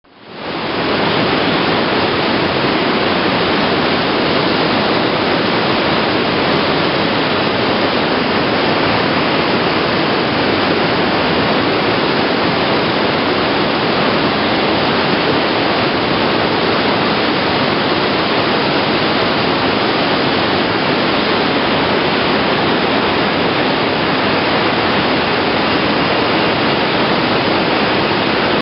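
Waterfall: heavy water rushing steadily. It fades in over about the first second and cuts off abruptly at the end.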